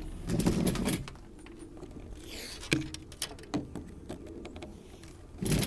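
Arisaka Type 99 bolt-action rifle being worked by hand and dry fired: a cluster of metallic clacks from the bolt in the first second, then scattered sharp clicks, among them the snap of the firing pin falling on an empty chamber.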